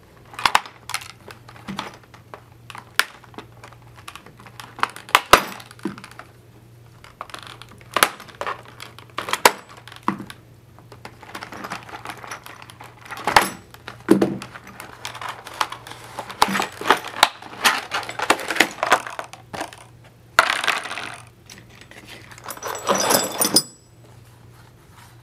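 Snips cutting through a hard clear plastic blister pack: a long series of sharp snaps and clicks. Near the end the plastic crackles as the pack is pulled apart, and the steel puller parts clink as they come out.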